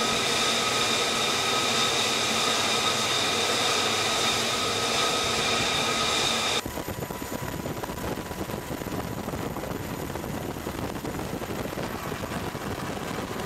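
Jet engine whine on a carrier flight deck: a loud, steady, high whine made of several fixed tones. About six and a half seconds in it cuts off abruptly to a quieter, even rushing noise of aircraft and wind.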